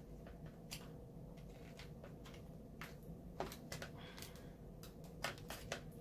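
Faint scattered clicks and crinkles of carbon-fibre vinyl wrap film being pressed and worked by hand, with a few sharper clicks in the second half, over a steady low hum.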